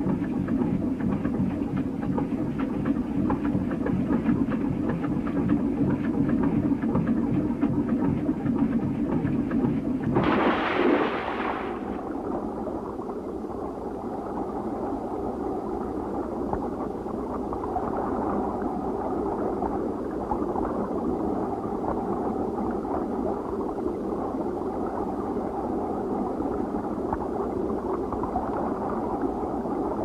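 A boat engine runs steadily, then a loud splash about ten seconds in as a sponge diver goes into the sea, followed by a steady, muffled underwater rushing.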